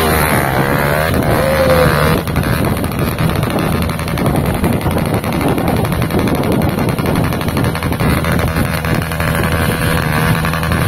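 Hero Xpulse 200's single-cylinder four-stroke engine revving up and down unevenly as the motorcycle labours up a steep, loose dirt climb.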